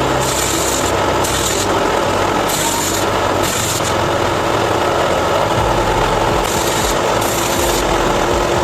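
Power tool working wood, running steadily, with a high scraping hiss that comes and goes in repeated strokes of about half a second to a second.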